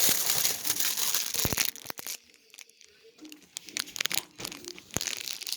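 Packaging crinkling and tearing. The dense rustle of the first second and a half gives way to scattered crackles and clicks.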